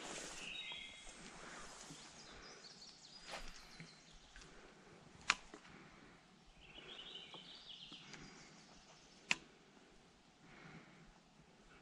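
Faint songbird singing in short runs of quick high notes over a quiet outdoor background, with two sharp clicks about four seconds apart.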